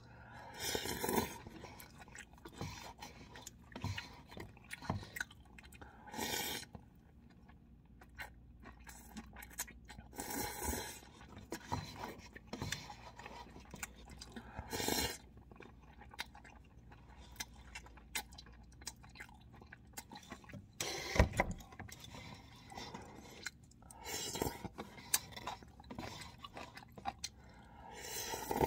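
A person slurping instant cup ramen noodles off chopsticks and chewing, in short noisy slurps every few seconds, with small wet clicks of chewing between them.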